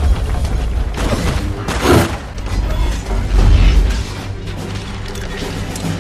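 Action-film battle soundtrack: a dramatic music score mixed with deep booms and crashes of robots fighting, with a big whooshing hit about two seconds in. After about four seconds the impacts thin out and the sustained music carries on.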